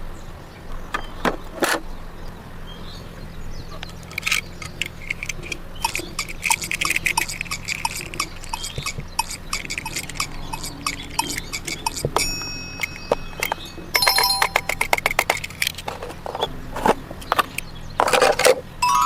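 Plastic toys clicking and rattling as they are handled, with faint short beeps in the middle and a bell-like electronic ring about two-thirds of the way through.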